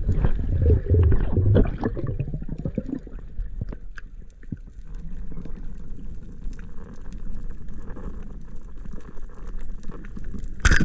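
Underwater water noise from a skin diver in the sea: a low, muffled rushing and gurgling, loudest in the first two seconds, with many faint scattered clicks. A loud sudden burst comes right at the end.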